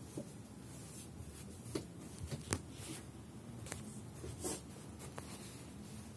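A checked cotton blanket rustling as it is pulled straight and smoothed over a floor mattress, with a few light sharp taps and knocks in between.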